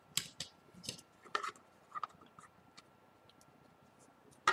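Small sharp clicks and taps of tools and Samsung Galaxy S4 parts being handled on a work surface, several in quick succession in the first two seconds, then a pause and a louder click near the end.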